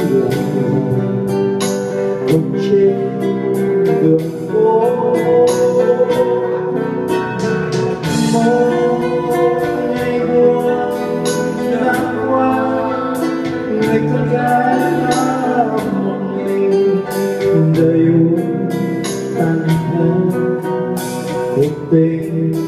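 Live band playing a slow ballad led by guitar, with a singing voice over it and frequent cymbal and drum hits.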